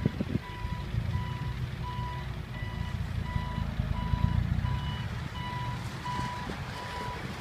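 Dump truck engine rumbling low, growing louder about a second in and easing off after about five seconds, under a steady electronic beeper sounding short beeps about one and a half times a second, like a reversing alarm.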